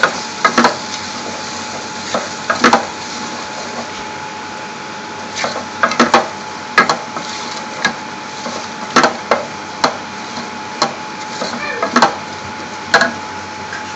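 Wooden spoon stirring a spice and onion mixture in a stainless steel pot, knocking and scraping against the sides at irregular intervals, over a steady hiss.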